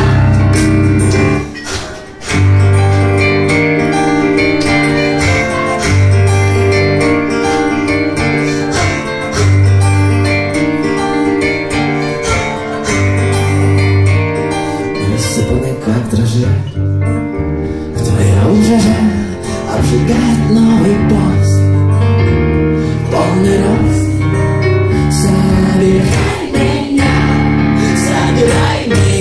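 Live keyboard and acoustic guitar music played on stage and recorded from the audience, with low bass notes that change every couple of seconds.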